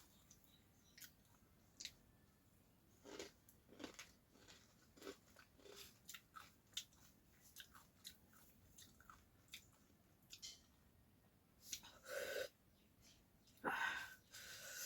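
Crunchy savoury snack (namkeen) being chewed by a person: faint, irregular crunches. Two louder, longer sounds come near the end.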